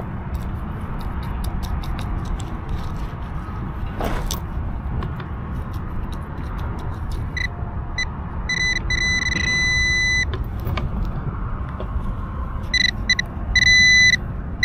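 Nokta AccuPoint pinpointer beeping in quick pulses of one high pitch, merging into a steady tone for about a second twice: it is over the buried target, a penny. Beneath it are scattered clicks and scrapes of digging and a steady low rumble.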